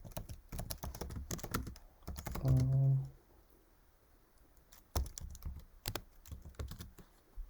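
Typing on a computer keyboard in two runs of quick keystrokes with a pause between them. A short vocal sound comes about two and a half seconds in.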